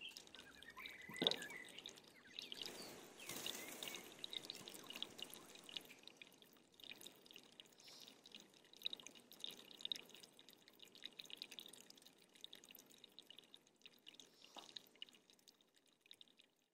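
Water dripping: many small, irregular drops, with one sharper knock about a second in.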